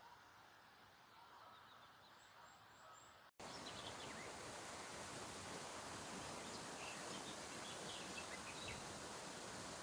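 Outdoor nature ambience: a quiet stretch with a few faint, high bird chirps, then, after a sudden cut about three seconds in, a louder, steady, even hiss with faint bird chirps over it.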